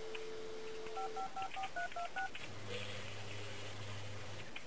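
Telephone dial tone, then seven touch-tone keypad beeps dialled quickly, about five a second, followed by a low steady tone lasting about two seconds.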